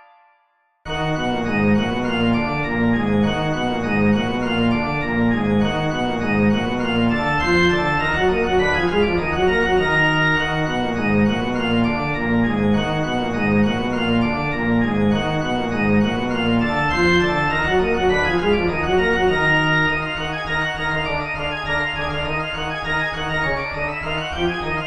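Background music with a keyboard or organ-like sound, starting suddenly after a moment of silence about a second in. It changes to a quieter, more held passage a few seconds before the end, with a rising sweep right at the close.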